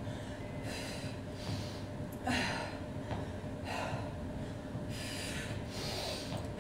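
A woman breathing hard from exertion while doing lunges: a series of about five sharp breaths, each a second or more apart.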